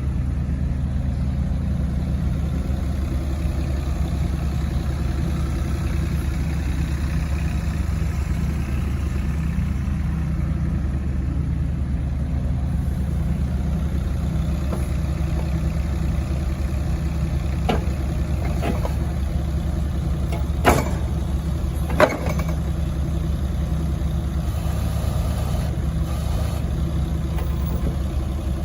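Kubota U-20-3S mini excavator's diesel engine running steadily at a low, even speed. A few sharp clicks or knocks come about two thirds of the way through, two of them louder.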